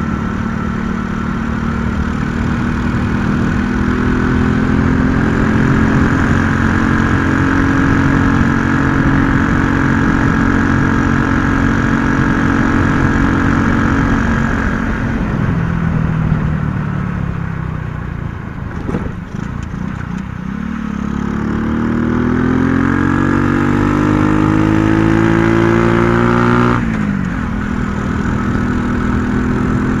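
RX9 50 cc motorcycle engine running under way, heard from the rider's seat. It holds a steady cruising note, sinks in pitch as it slows a little past halfway, then rises again as it accelerates, and drops abruptly a few seconds before the end.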